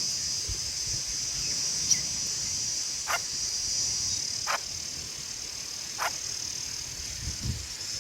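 Steady, high-pitched chorus of crickets or similar insects, with a short call that falls in pitch repeated three times, roughly every second and a half.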